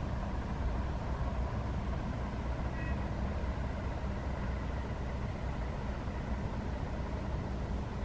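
Steady low outdoor rumble of background noise, such as distant road traffic or wind, with a faint short bird call about three seconds in.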